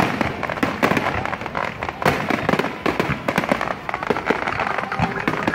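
Aerial fireworks display going off: many sharp bangs in quick, overlapping succession, with one especially strong bang about two seconds in.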